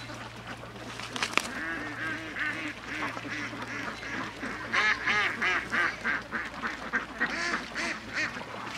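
Ducks quacking: a run of short calls, several a second, thickening from about a second and a half in and loudest around the middle.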